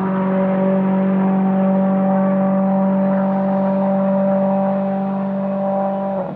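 Volvo S60 TC1 race car's turbocharged 1.6-litre four-cylinder engine running at a steady speed, a constant-pitched drone that cuts off abruptly near the end.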